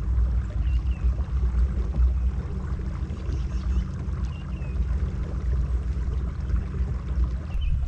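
Steady low rumble and water noise of a kayak under way on a lake, with three faint short high chirps scattered through it.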